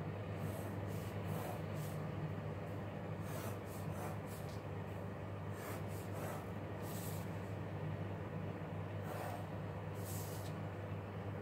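Ballpoint pen drawing lines along a plastic ruler on paper: a series of short scratchy strokes at irregular intervals, over a steady low hum.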